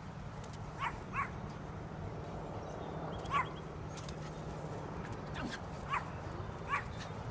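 Dog giving about five short, high whimpering yips, worked up over a bird trapped in a trampoline.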